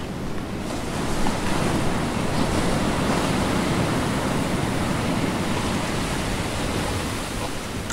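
Steady rush of water along a sailboat's hull as it sails under way, with wind.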